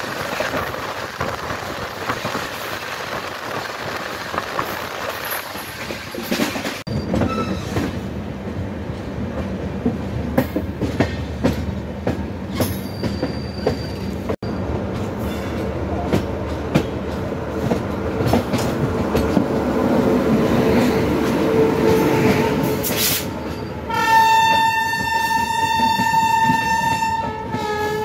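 Train running noise from the open door of a moving passenger coach: wheels rumbling and clattering over rail joints and points. Near the end a locomotive's horn sounds one long, steady blast of about three seconds.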